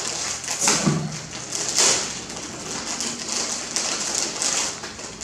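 Plastic snack packaging crinkling and rustling as hands work at a packet of crackers, in uneven bursts, with a short voice-like sound about a second in.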